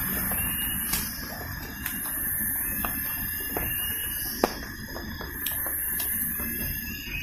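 Tropical forest ambience: a very high insect buzz that swells and fades in long pulses every few seconds, over a faint steady whine, with scattered sharp ticks.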